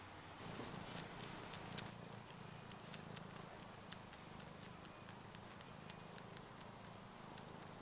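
A cat purring faintly, with light, irregular ticking clicks about three or four times a second over it.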